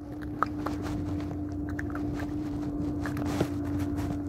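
Footsteps crunching on loose shoreline stones, with scattered clicks and knocks, over a steady low hum.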